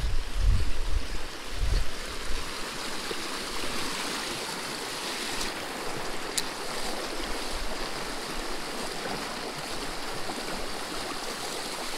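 Shallow rocky stream rushing steadily over a riffle. A few low thumps come in the first couple of seconds, and there is a single sharp click about six seconds in.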